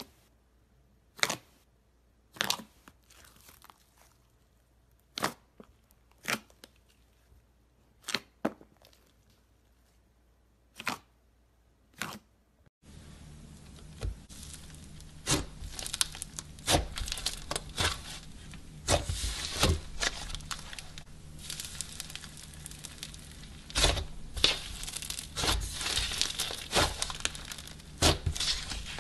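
Glossy slime being stretched and squeezed by hand, giving a sharp pop every second or two as trapped air bursts. About halfway through this gives way to a thick, matte yellow slime being kneaded, a steady dense crackling and crinkling studded with louder pops.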